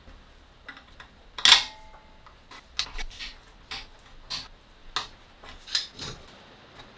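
A steel bracket clanking onto a steel tank with a short metallic ring, then a string of sharp metal clinks as an adjustable wrench works the bracket's bolt.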